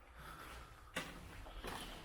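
Footsteps on the floor of an underground shelter tunnel, with a sharp step about a second in and a lighter one shortly after.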